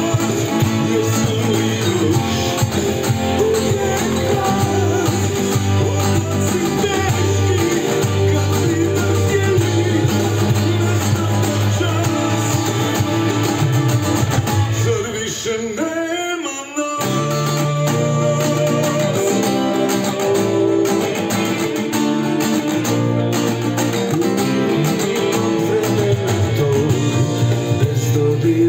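Steel-string acoustic guitar strummed in chords, with a brief break about sixteen seconds in before the strumming resumes.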